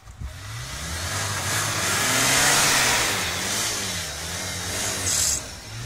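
Off-road 4x4 engines revving hard under load during a tow recovery on a strap, the engine note rising and falling. A loud rush of spinning tyres churning snow swells to a peak about halfway through, then eases.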